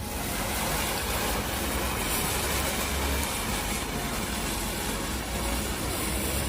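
Firework fountain spraying sparks with a steady hiss and a low rumble underneath.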